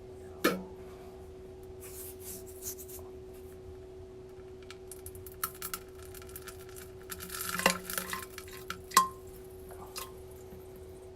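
A few sharp knocks and clicks and short rustling scrapes over a steady low hum; the loudest knock comes near the end.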